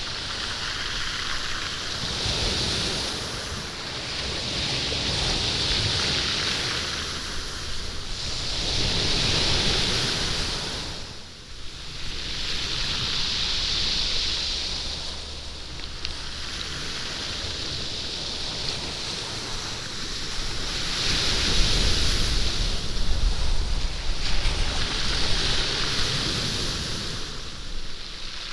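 Waves washing over a stony beach, the stones rolling and clattering in the surf as each wave comes in and drains back. The surf swells and eases every few seconds, with a brief lull a little before halfway.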